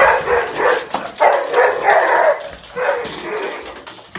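A dog vocalizing in a run of drawn-out barks and whines, several calls with short gaps between them, fading near the end.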